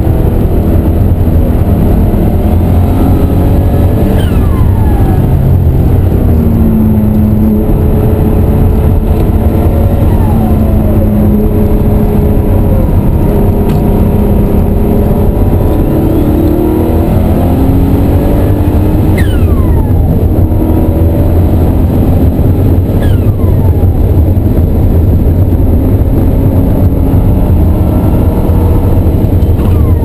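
Twin-turbo flat-six of a 1988 RUF CTR at race pace, heard from inside the cockpit. It runs loud, and its revs climb through the gears and drop back again and again. Several times a high whistle falls in pitch.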